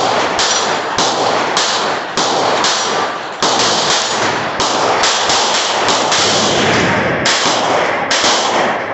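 Rapid gunfire from several guns firing at once on a range, sharp shots coming about one to two a second and running into one another with a reverberating tail.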